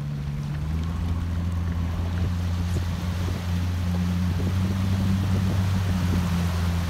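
Boat engine running steadily with a low, even hum, over a hiss of water and wind.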